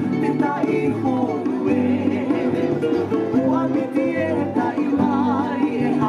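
Tahitian dance music: a sung melody with a wavering voice over plucked-string accompaniment and a steady bass line.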